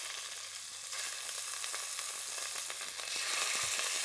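Chunks of lamb sizzling in hot olive oil in a stainless steel pot as they are seared to brown, a steady hiss with small crackles. It grows louder about a second in and again near three seconds as more pieces go in.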